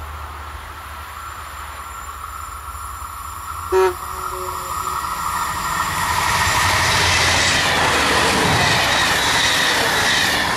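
A train approaching and passing close by, its running noise swelling from about six seconds in with a whine of wheels on the rails. A brief horn blast sounds about four seconds in.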